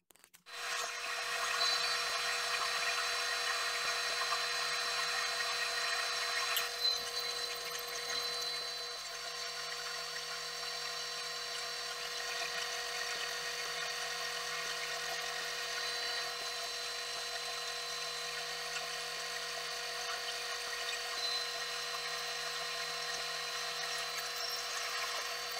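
Metal lathe switched on and running steadily, turning a cast iron chuck back plate: a steady mechanical whine with a thin high tone. It is a little louder and rougher for the first six or seven seconds, then settles.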